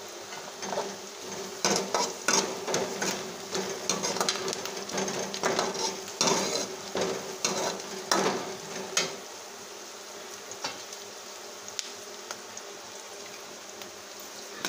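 A steel ladle stirring and scraping chopped onions frying in oil in a steel kadhai, with the oil sizzling. The scraping and clinking stop about nine seconds in, leaving a softer sizzle with a few ticks.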